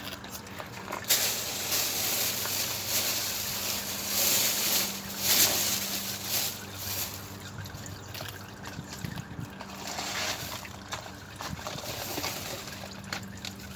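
CVT transmission fluid trickling and sloshing as it drains from the transmission pan, in uneven swells.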